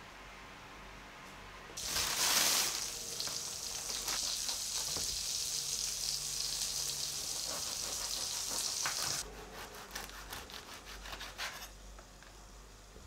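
A steady sizzling hiss starts suddenly about two seconds in and cuts off sharply about nine seconds in. Then a bread knife saws through a crusty baguette on a wooden board in quick, scraping strokes.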